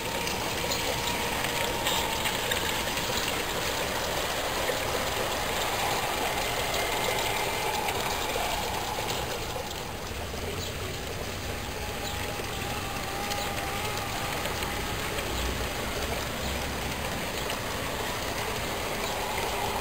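G-scale garden-railroad train running on outdoor track: a steady rushing hiss with a faint wavering whine.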